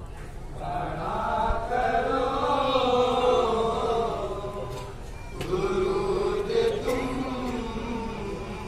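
A group of men chanting an unaccompanied naat (devotional Urdu poem) together, in two long sung phrases with a short break about five seconds in.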